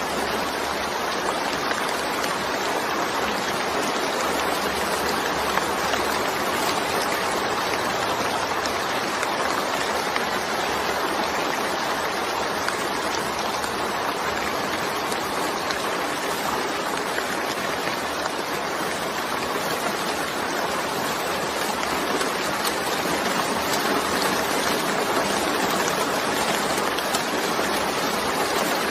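Steady, even rain noise with no distinct drops or thunder.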